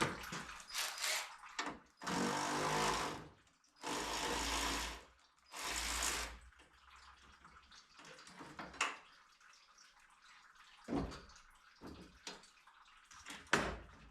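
Coolant pouring out in three short gushes, followed by scattered clicks and knocks.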